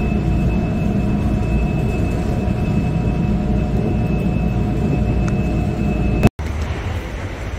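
Steady low rumble of a vehicle in motion, with a faint steady high whine over it. About six seconds in it breaks off sharply for an instant, then resumes a little quieter and hissier.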